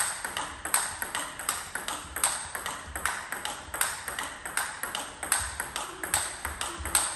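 Table tennis ball in a steady, unbroken rally: sharp clicks of the ball off the rubber-faced bats alternating with bounces on the table, about three a second.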